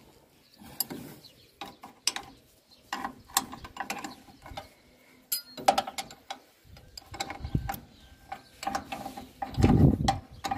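A wrench tightening bolts on the mount that holds a John Deere 346 baler's hydraulic oil pump: irregular metal clicks and clanks, with a heavier knocking near the end.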